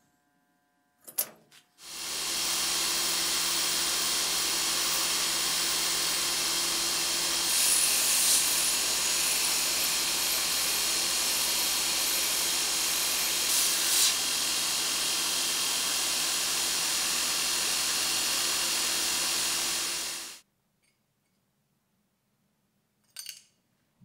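Belt grinder running, its abrasive belt grinding a steel knife blade: a steady hiss over the motor's hum. It starts about two seconds in, swells louder twice as the blade is pressed harder, and stops abruptly several seconds before the end. A couple of sharp clicks come just before it starts.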